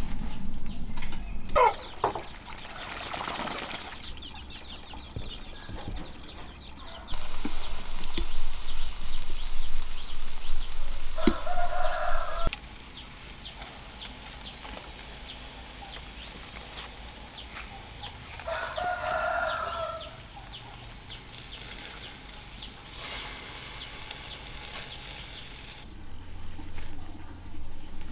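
A rooster crowing twice, each crow lasting about a second and a half, among farm chickens. A loud rushing noise runs for about five seconds, up to the first crow.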